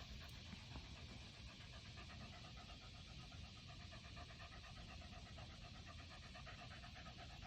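A pet dog panting faintly in a quick, even rhythm.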